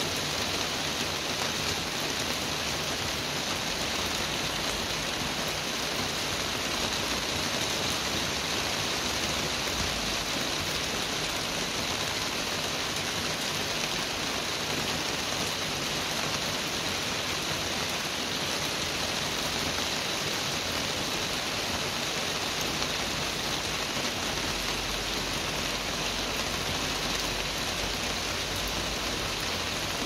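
Steady rain falling, an even, continuous hiss with no breaks or changes in loudness.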